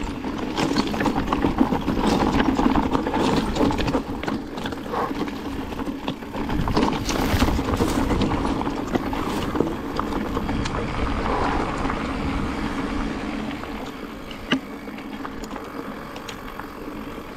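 Mountain bike rolling down a rocky trail: tyres crunching over loose stones while the bike rattles and knocks over the bumps. The rattling eases over the last few seconds as the trail smooths out, with one sharp knock near the end.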